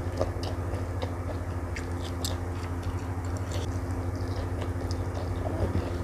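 Close-miked wet chewing and crunching of someone eating stir-fried water spinach and omelette with her fingers, with scattered small smacks and clicks of the mouth. A steady low hum sits beneath.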